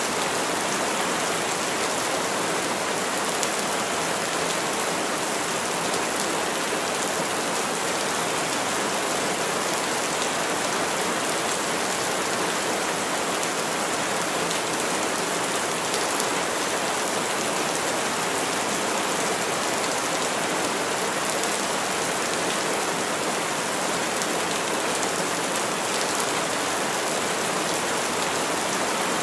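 Heavy rain falling steadily through tall trees, an even, unbroken hiss with no thunder.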